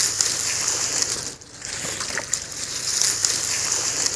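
Water splashing and sloshing in irregular surges as a large arrow-speared fish thrashes at the surface while it is played in on the line.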